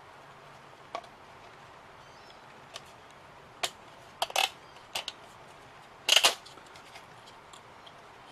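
Thin 3 mm laser-cut MDF model parts clicking and knocking against each other and the work mat as they are handled: a few scattered sharp taps, the loudest a quick cluster about six seconds in.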